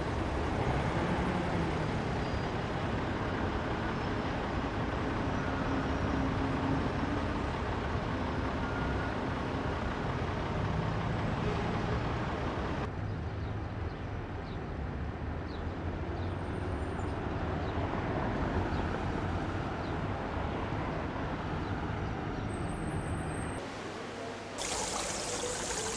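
Steady city street traffic: engines and tyres of passing cars and buses blending into a continuous rumble, with single vehicles rising and falling in pitch. Near the end the sound cuts to an even rushing of water.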